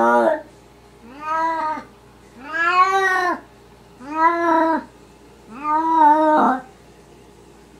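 A cat meowing over and over: five drawn-out meows, each rising then falling in pitch, about a second and a half apart. The last meow is the longest.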